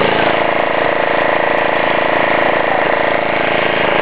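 Motorboat engine running at a steady speed with an even, fast pulse.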